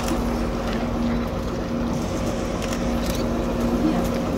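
Vaporetto water bus's diesel engine running at a steady cruise, heard from on board as a constant low drone with a steady hum.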